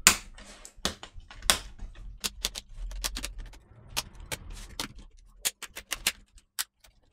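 Plastic screen bezel of a Dell Inspiron 15 3000 laptop being pressed onto the display lid, its clips snapping into place in a string of sharp, irregular clicks, coming thicker near the end.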